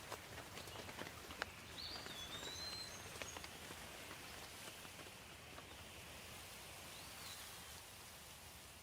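Steady rain hiss with scattered drop ticks, and a few short bird chirps about two to three seconds in and once more near the end.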